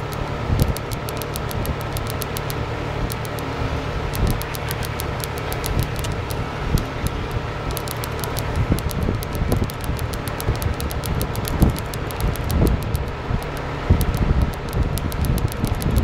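Wind buffeting the microphone, a low uneven rumble, with a faint steady whine above it.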